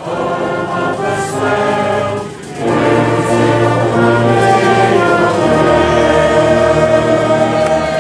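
Brass band accompanying a crowd singing together, with a short break about two and a half seconds in and then a long held chord.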